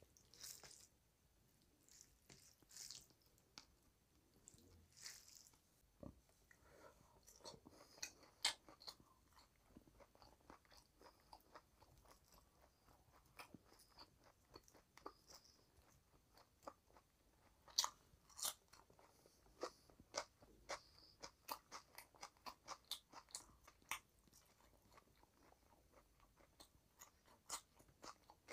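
Close-miked eating sounds: soft, wet squishing of rice and curry being mixed by hand on a plate, then chewing with many sharp, crisp crunches and clicks, some close together.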